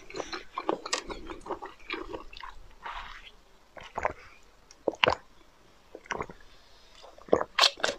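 ASMR mouth sounds of eating a watermelon-style jelly candy on the tip of a syringe-shaped tube: chewing and sucking, with sharp wet clicks and smacks. Several loud clicks come close together near the end.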